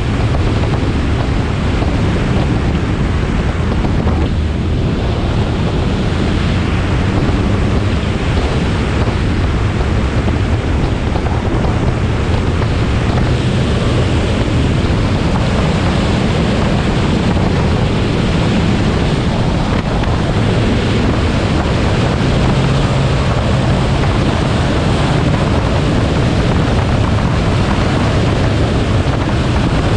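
Dodge Dart rally car driving: steady engine and road noise, with wind buffeting the camera microphone.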